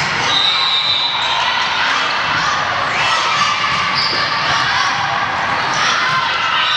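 Echoing sports-hall din from a volleyball rally: the ball being hit and bouncing, with the shouts and chatter of players and onlookers, and a few brief high squeaks.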